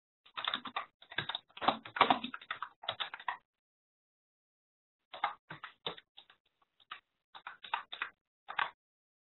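Computer keyboard typing: two runs of quick keystrokes with a pause of about two seconds between them, as a mistyped password is typed in again.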